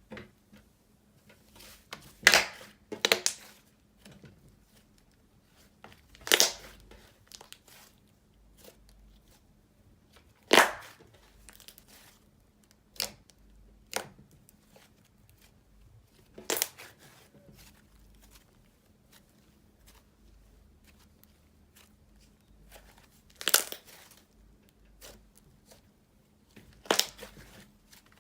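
Slime being squished and stretched by hand, giving about nine short, sharp crackling pops at uneven intervals.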